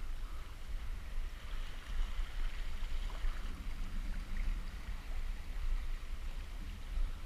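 Steady wash of sea water over a rocky shore, with a low wind rumble on the microphone.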